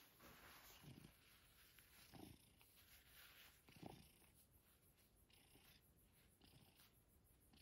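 Very quiet: a domestic cat purring faintly while held, with a few soft, short low sounds about one, two and four seconds in.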